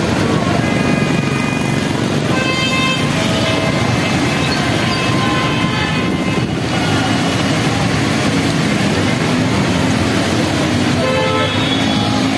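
Road traffic passing through a flooded street: engines running and tyres splashing through standing water, with vehicle horns honking about two seconds in and again near the end.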